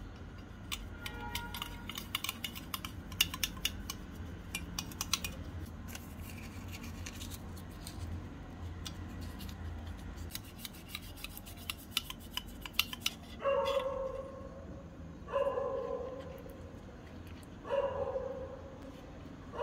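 Small clicks and paper rustles as a miniature tin tray is greased with a brush and lined with butter paper. Then, about two-thirds in, a dog barks three times, about two seconds apart.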